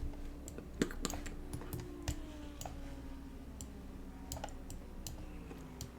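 Computer mouse clicking, a string of sharp single clicks at irregular intervals over a faint steady hum.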